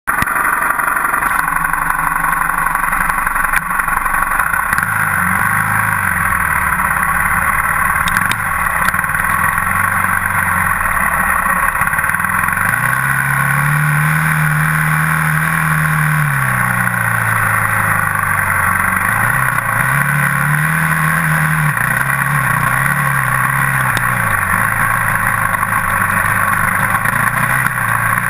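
Dirt bike engine running under way, its revs rising and falling with the throttle. It climbs to a held higher pitch a little before halfway, drops back, rises briefly again, then settles lower near the end.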